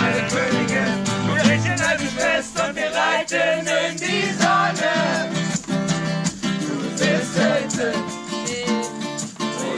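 Acoustic guitar strummed with steady, even strokes while a voice sings along.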